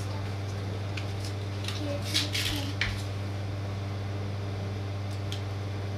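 Steady low hum with a few brief scuffs and rustles about two to three seconds in, as a child moves into the room.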